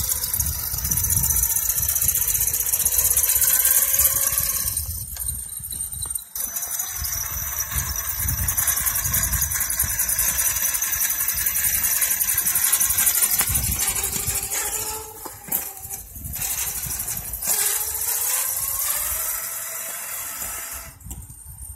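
A Losi DBXL 1/5-scale RC buggy's brushless motor (Castle Creations Mamba XLX 2028, 800 kV, on 8S) whines under load while towing another RC truck on a rope. The pitch rises and falls with the throttle and drops off briefly twice, over gear and tyre noise on asphalt.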